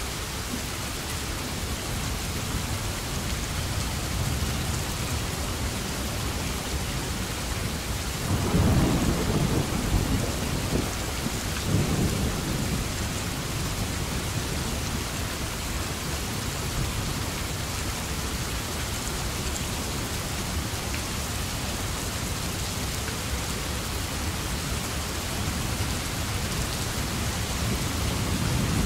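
Steady rainfall, with a rumble of thunder rolling in about eight seconds in and swelling once more a few seconds later before fading back under the rain.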